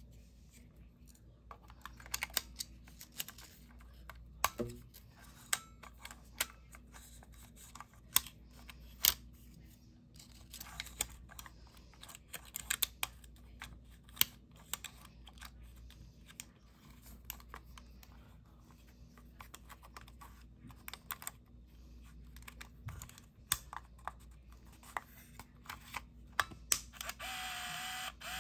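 Olympus mju-II compact film camera being handled, with a long series of sharp, irregular clicks from its buttons. Near the end the camera's small built-in motor starts a steady whir.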